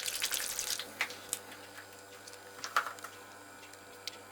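A crackling hiss that stops about a second in, followed by a few light, scattered clicks and knocks.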